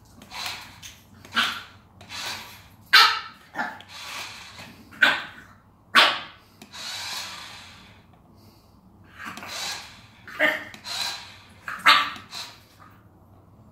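French bulldog puppy barking: a string of short, sharp barks at irregular intervals, with a brief lull in the middle.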